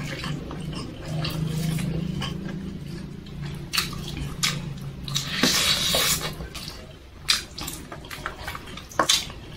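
Wet chewing and lip-smacking of a person eating rice and chicken by hand, with a series of short, sharp smacks in the second half.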